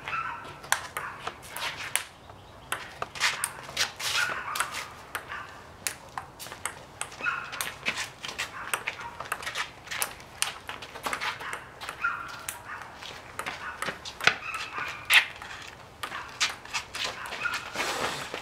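Ping-pong ball clicking sharply and irregularly off paddles, the table and the concrete during a fast rally. Short high-pitched calls come in every few seconds.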